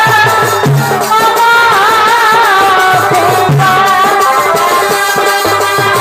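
Background music: a wavering, sustained melody line over a steady beat of low drum hits and a shaker-like rattle.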